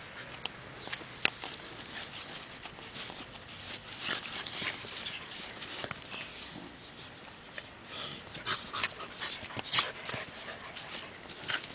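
Borzoi puppies scuffling in loose dirt, with scraping and rustling and a few short whimpers, mostly in the second half.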